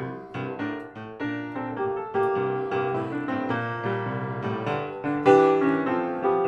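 Piano music: melody notes and chords struck and left to ring.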